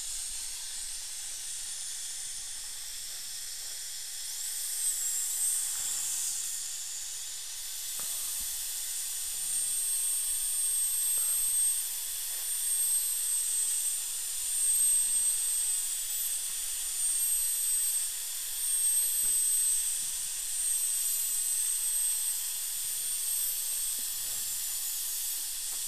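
Dental high-speed handpiece with a fine diamond bur whining over a steady hiss as it grinds through the contact area of an old porcelain-fused-to-metal crown. The high whine sets in about five seconds in and keeps dipping and recovering in pitch as the bur bears on the crown.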